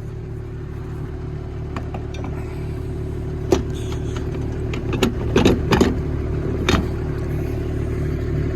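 New Holland T7040 tractor's six-cylinder diesel running steadily while baling, with a few sharp clicks and rattles, the loudest cluster about halfway through.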